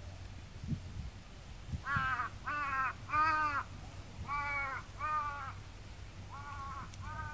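A crow cawing in a rhythmic series, seven caws about half a second apart, grouped three, then two, then two, starting about two seconds in.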